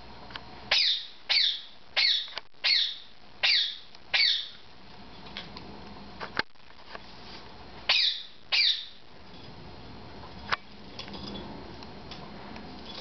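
Small dog giving high, sharp play yips while wrestling with another dog, each yip dropping in pitch: six in quick succession, a pause, then two more.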